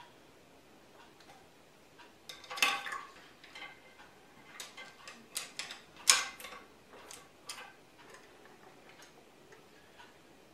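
Irregular light clicks and taps of painting tools being handled off the canvas, hard objects knocking against each other, with two louder knocks about two and a half and six seconds in.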